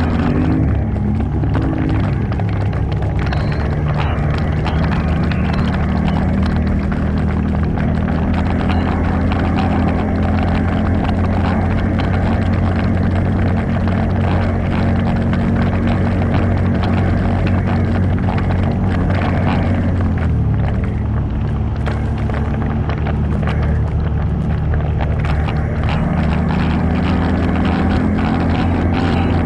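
ATV engine running under way, its note shifting with the throttle. It drops about two-thirds of the way through and climbs again near the end.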